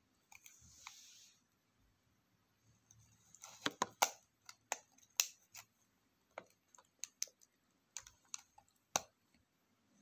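Fingers handling a boxed eyeshadow palette in plastic-and-card packaging: a brief crinkly rustle near the start, then a run of sharp, irregular clicks and taps of fingernails on the plastic, loudest about four seconds in.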